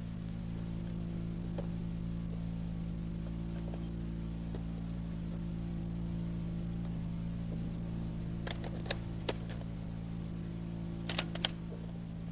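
Steady low hum with a few sharp metallic clicks in two small clusters, about eight and a half and eleven seconds in, from a Browning Automatic Rifle being handled by a prone gunner; no shots are fired.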